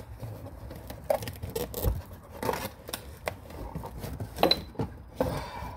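A mortar and pestle being handled and pulled out of its cardboard box: a string of scrapes, rustles and small knocks.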